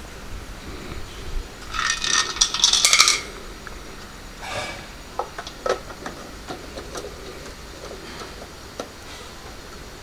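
Handling noise of a plastic tail-light lens and small hard parts: a clattering, rattling run of clicks about two seconds in, lasting about a second, then scattered light clicks and taps.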